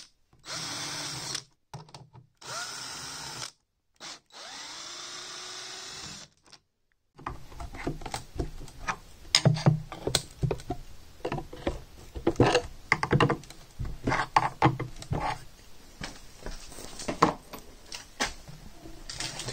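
Cordless drill-driver running in several short bursts, its motor pitch rising and falling as it backs out the screws holding a speaker's fiberglass horn. From about seven seconds in, it gives way to a quick, irregular run of clicks, knocks and scrapes as a screwdriver pries the horn flange loose from the cabinet.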